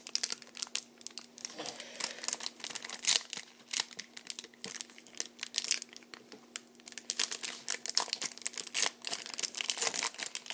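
Foil wrapper of a baseball card pack crinkling and tearing as it is pulled open by hand, a dense run of irregular crackles.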